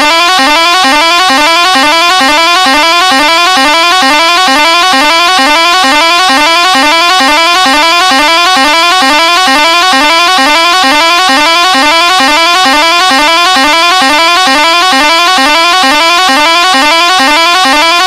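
Bus pressure horn sounding continuously and very loudly, a rapid unbroken string of rising whoops repeating at an even pace.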